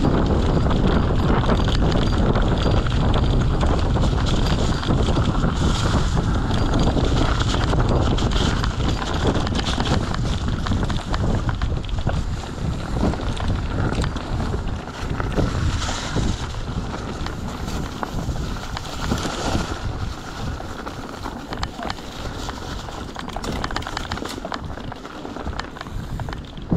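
Wind buffeting an action camera's microphone on a moving mountain bike, with tyre noise and frequent clicks and rattles from the bike over the trail. The wind is loudest for the first dozen seconds, then eases off.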